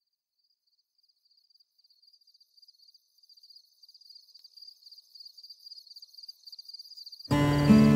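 Crickets chirping in a fast, steady pulsing trill, fading in from silence and growing louder. About seven seconds in, music starts abruptly.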